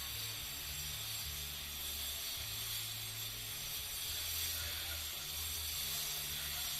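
A steady high hiss with a low hum beneath it that shifts in level every second or so.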